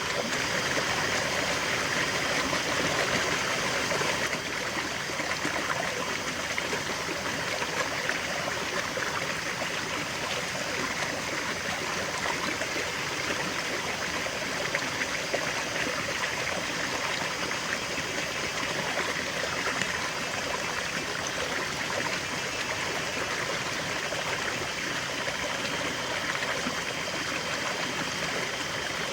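River water flowing steadily over rocks, a continuous rush with some trickling and gurgling.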